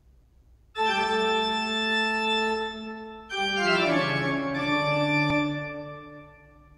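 Short musical logo sting played on an organ-like keyboard: a held chord comes in about a second in, then a second chord enters with notes stepping downward and fades out near the end.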